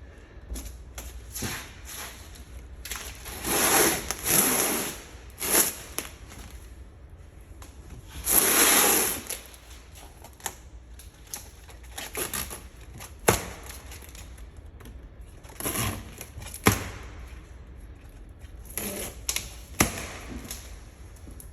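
Boat parts being handled: scattered clicks and knocks, with two longer rustling scuffs about four and nine seconds in.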